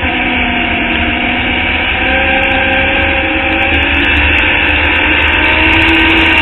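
Open-wheel formula race car's engine heard from on board, running hard at high revs with its pitch climbing slowly as the car accelerates, over steady wind rumble on the microphone.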